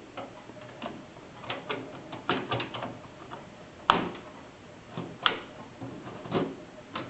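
Scattered clicks and taps of plastic and metal as a video card is handled and pressed into a motherboard's expansion slot, with the sharpest click about four seconds in.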